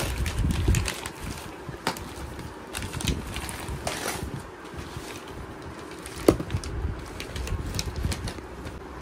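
Wrapping paper rustling and crinkling as small hands pat and scrabble on a cardboard toy box, in scattered irregular taps with one sharper tap about six seconds in.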